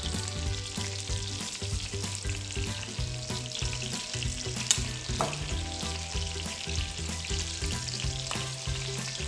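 Marinated chicken pieces sizzling in hot melted butter in a frying pan: a steady crackling hiss, with a couple of light clicks midway.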